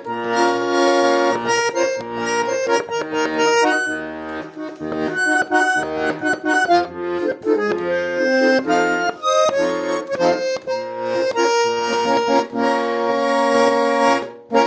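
Garmon (Russian button accordion) playing a lively melody over rhythmic bass-side chords. It ends on a held chord that cuts off right at the end.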